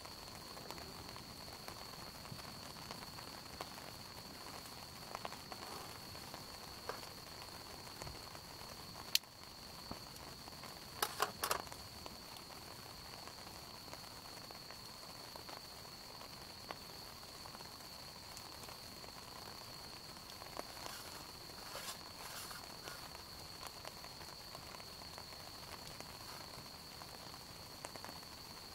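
Campfire burning with a faint hiss and occasional crackles, with a single sharp pop about nine seconds in and clusters of pops around eleven seconds and again around twenty-one seconds. A steady high-pitched tone runs underneath.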